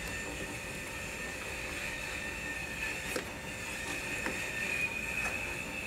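A few faint clicks and taps from hands working at the inverter coolant pump's fittings and hoses behind the headlight, over a steady high-pitched whine.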